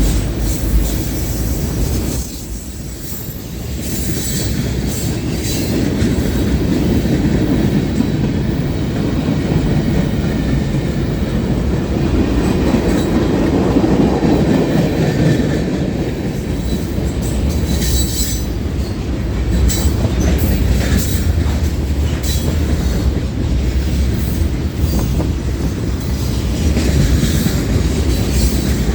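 Mixed freight train's cars rolling past: a steady rumble of steel wheels on the rails, with clicking and clatter, dipping briefly near the start.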